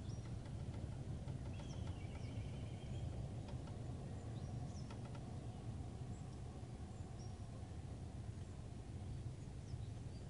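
Faint, scattered bird chirps, with one short held call about two seconds in, over a steady low rumble.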